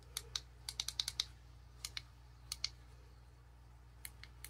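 Small plastic buttons on a TIDradio Bluetooth speaker-microphone clicking as they are pressed repeatedly, in quick groups of clicks with short pauses between them.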